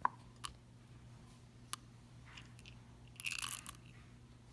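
Chocolate chips being added to a coffee mug of cake batter: a few sharp separate clicks, then a short crinkly rattle of chips tipped out of their packet near the end.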